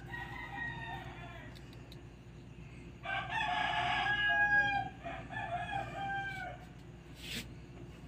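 Roosters crowing, with the loudest crow about three seconds in and a shorter one right after it.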